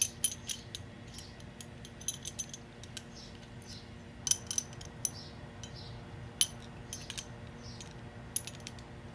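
Metal wrenches clicking and clinking against gas fittings as the fittings are tightened with two wrenches, one holding while the other turns: a scattered run of short, sharp metallic clicks.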